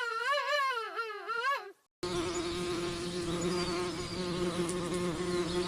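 A mosquito's high whine, its pitch wavering up and down, cuts off just under two seconds in. After a brief silence a lower, steady insect buzz takes over.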